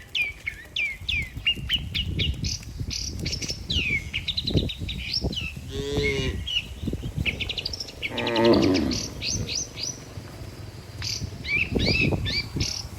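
Small birds chirping busily throughout, with cattle mooing: a short call about six seconds in and a louder, longer moo around eight to nine seconds.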